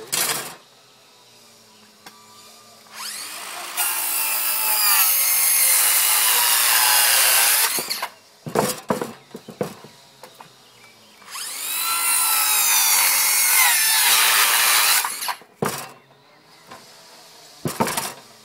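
Cordless circular saw making two cuts through a wooden rafter tail, each about four seconds long: the motor spins up with a rising whine, the blade runs through the wood, and the motor winds down. Sharp knocks come between and after the cuts.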